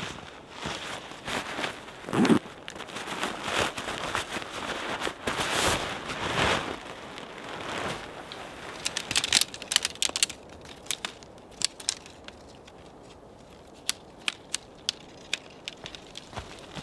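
Tent fabric rustling and crinkling as a military one-person tent is unrolled and spread out on snow, with a dull thump about two seconds in. From about nine seconds in comes a run of separate sharp clicks as the tent's sectioned poles are handled and fitted together.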